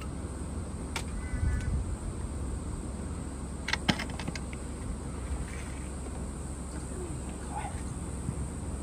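Handling noises as a cloth snake bag holding a carpet python is worked out from under a hot water tank: a sharp click about a second in, then a quick cluster of knocks and rattles about four seconds in, over a steady low hum.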